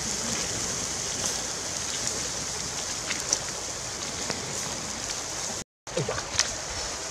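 Whole catfish sizzling on a wire grill over glowing wood embers, a steady hiss with small scattered crackles and pops from the fire; the sound cuts out for a moment near the end.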